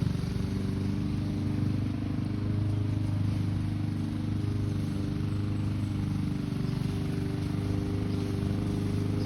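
Petrol lawn mower engine running steadily at a constant speed, a continuous low hum with no change in pitch.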